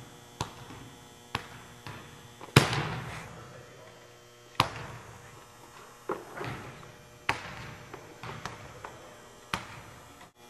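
A basketball bouncing on a hardwood gym floor: about ten sharp, irregularly spaced bounces, each ringing on in the echo of the large gym, the loudest about two and a half seconds in.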